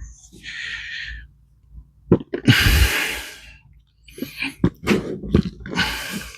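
Hands rummaging and scraping through loose potting compost to find potatoes: several rustling, hissing bursts with small clicks, the longest and loudest about halfway through.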